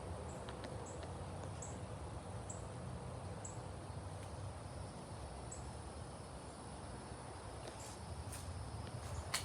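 Wind blowing, with a low, uneven rumble of wind on the microphone, and faint high-pitched chirps scattered through it.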